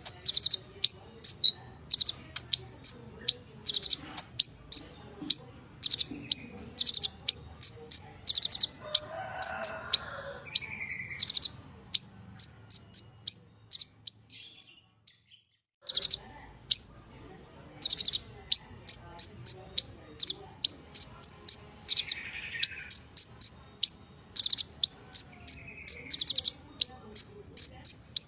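Purple-throated sunbird (kolibri ninja) male singing: a rapid, continuous run of sharp, high chirps and short buzzy notes, breaking off for about two seconds around the middle before resuming.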